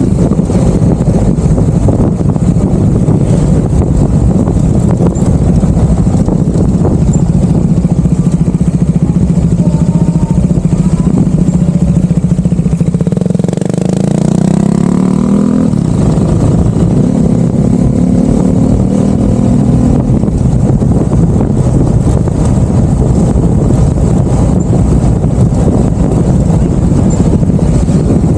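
A vehicle's engine running continuously on the road, loud and steady. About halfway through, its pitch dips briefly and then climbs as it speeds up.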